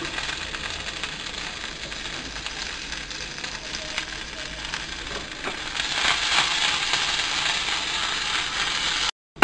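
Curry leaves, dried red chilli and mustard seeds sizzling and crackling in hot oil in a steel kadai, a tempering for a curry. The sizzle grows louder about six seconds in and cuts off suddenly near the end.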